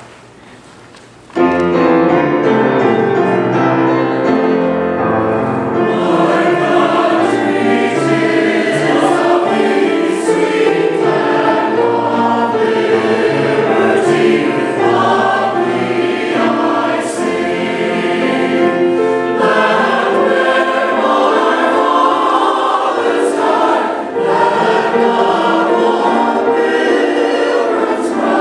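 Mixed choir of men's and women's voices singing, coming in about a second and a half in after a brief hush.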